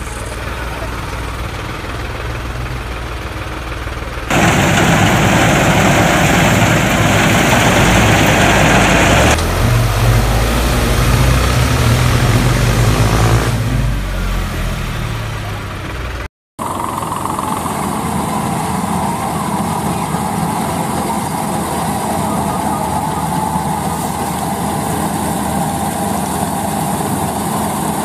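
Steady mechanical motor running noise from toy farm machines. It turns louder and harsher about four seconds in and stays that way for around five seconds, with some rising and falling pitch after that. It drops out for an instant at a cut, then carries on steady.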